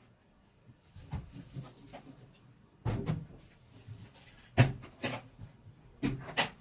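Latches of a hard plastic carrying case being snapped open and the case handled: a series of sharp plastic clicks and knocks, the loudest a little past halfway through.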